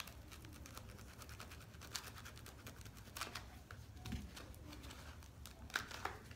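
Faint scratching and small clicks as a plastic solar filter cell and its foam spacer pads are handled and adjusted by hand.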